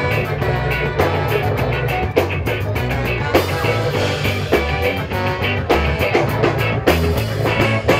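Live rock band playing through a stage PA: drum kit beat, bass guitar, electric guitar and a horn section of saxophone, trumpet and trombone, with keyboard.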